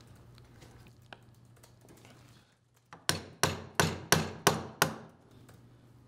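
Mallet tapping the handle of a crescent wrench about six times in quick succession, about three strikes a second, each a sharp tap with a short ring. The taps are to break loose a stuck threaded plug and stuffing box on a dump valve bonnet. The taps start about halfway in, after near quiet.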